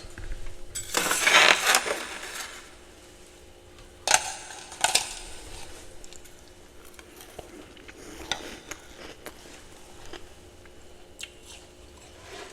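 Ice being bitten and chewed: a long loud crunch about a second in, two sharper crunches around four and five seconds, then fainter chewing crunches.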